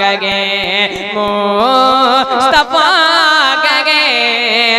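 A boy singing a naat, an Urdu devotional poem, through a microphone and PA. He holds drawn-out, wavering melodic lines without clear words, over a steady low drone.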